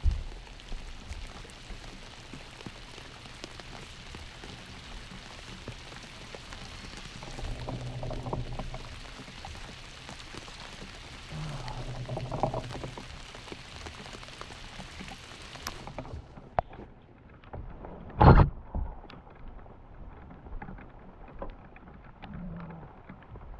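Heavy rain falling steadily, with many small ticks of drops hitting. A single loud knock about eighteen seconds in.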